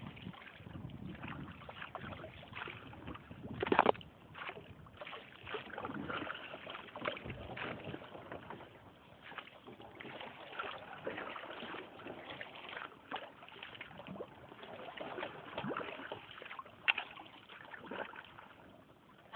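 Paddle strokes splashing and dripping in floodwater as a small boat is paddled along, irregular and uneven. There are two sharper knocks, one about four seconds in and one a couple of seconds before the end.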